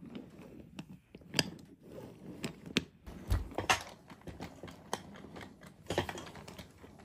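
Wooden toy train cars pushed by hand along wooden track, the wheels and couplings clicking and clattering irregularly, with a dull bump a little past halfway.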